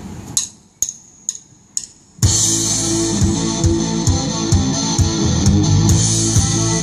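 A live band's count-in of four sharp clicks about half a second apart, then the full band comes in together a little past two seconds in: electric guitar, bass and drum kit playing amplified through a PA, with a steady beat.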